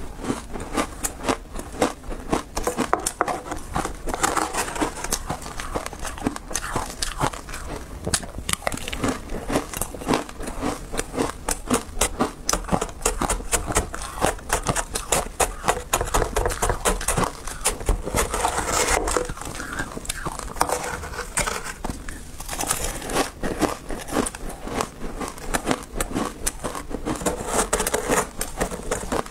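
Close-miked crunching of a frozen ice cake: a metal spoon scraping and breaking into the refrozen ice, and crackly chewing of ice chunks, many sharp crunches a second.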